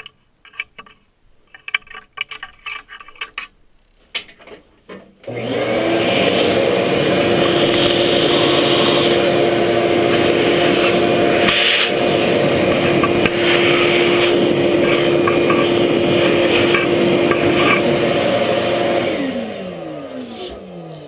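A few light knocks and clicks, then the Grizzly G0463 benchtop mill's spindle motor winds up about five seconds in and runs at a steady speed with a steady hum. Near the end it is switched off and spins down, its pitch falling.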